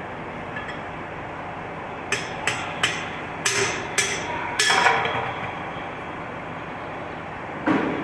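A hammer striking metal: six sharp blows in quick succession, the later ones ringing briefly, then one more blow near the end, over a steady background noise. The blows come during work on a truck wheel hub while its wheel seal is being replaced.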